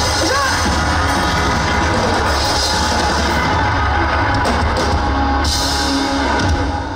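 A band playing loud rock music with a drum kit, the sound filling every range at once, falling away near the end.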